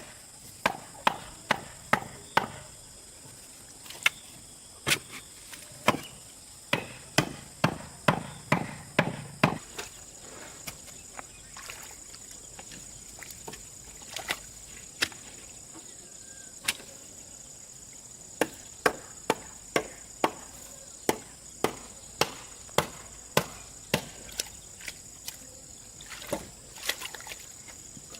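Repeated sharp hand-tool blows in irregular runs, about one to two a second, with a sparser stretch a little past the middle.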